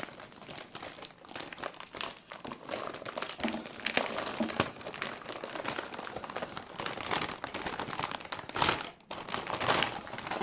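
Packaging crinkling and rustling in dense, irregular crackles as a motherboard is taken out of its box and unwrapped.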